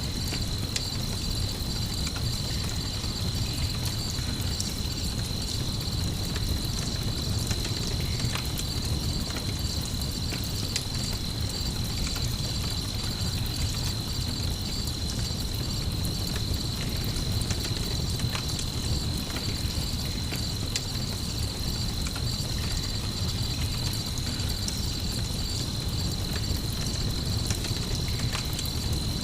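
Night crickets trilling steadily, mixed with a crackling campfire giving scattered small pops over a constant low rumble.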